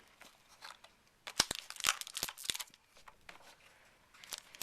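Plastic wrap being torn and crinkled off a sealed box of trading cards: a burst of sharp crackles about a second and a half in, then more crackling near the end.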